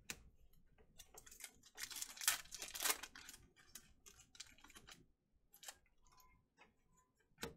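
Foil trading-card pack wrapper crinkling as it is torn open, and the cards clicking and sliding against each other as they are handled: a dense run of rustles and clicks that thins out after about five seconds, with one sharper click near the end.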